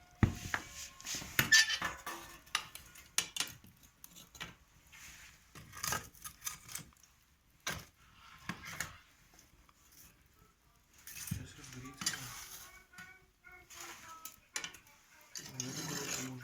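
Metal tools scraping and clanking in a wood-burning fireplace's firebox as packed ash is cleared out: irregular bursts of scraping and clinks with short pauses between them.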